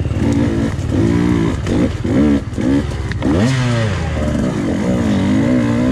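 Two-stroke dirt bike engine running on the trail, its pitch rising and falling with the throttle, with one sharp rev-up a little over three seconds in.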